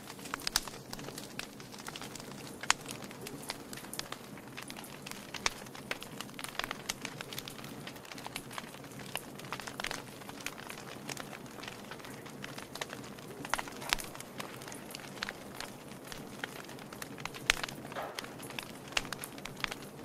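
Wood fire of stacked logs crackling in a fireplace: irregular sharp pops and snaps, a few of them louder, over a steady low rush of the flames.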